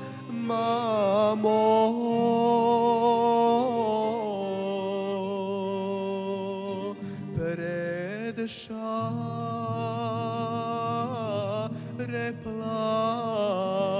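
Male solo voice singing a traditional Serbian folk song in long, ornamented held notes with vibrato. Accordion, violin and acoustic guitar accompany him over a steady low drone.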